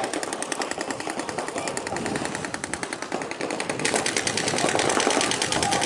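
Paintball markers firing in rapid strings, about a dozen shots a second, growing louder and sharper about four seconds in.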